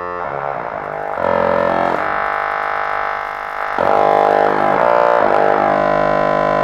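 Buzzy electronic drone rich in overtones, its pitch bending and sweeping up and down. It swells louder about a second in, and again near the four-second mark.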